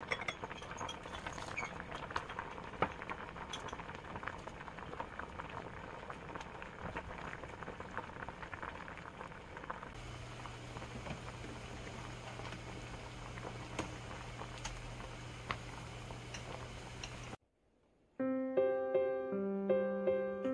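A steel pot of spicy noodle soup boiling hard, with a dense bubbling and popping crackle. About halfway through the boiling goes on under a steady low hum. After a brief silence near the end, soft piano music starts.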